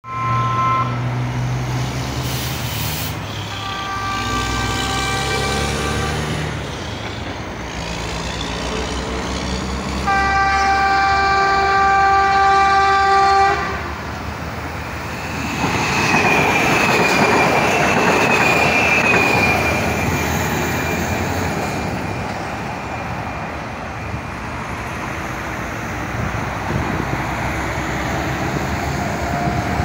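Chinese-built electric multiple unit train sounding its horn three times: a short blast, then a longer one, then a loud blast of about three seconds. It then passes close by, its wheels rumbling on the rails with a high steady squeal, and the sound fades as it moves away.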